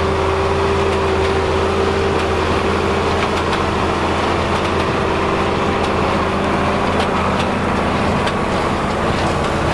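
Engine of vintage farm machinery running steadily, with a constant whine above the engine that fades out about seven seconds in.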